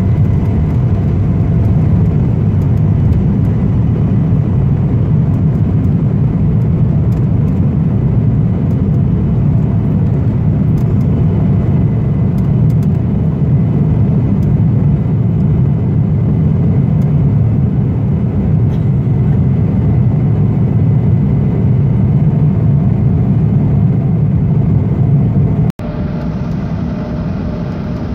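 Jet airliner cabin noise during takeoff and climb-out, heard from a window seat over the wing: a loud, steady rumble of the engines and rushing air. Near the end it cuts abruptly to a quieter, even cabin drone with a faint steady tone.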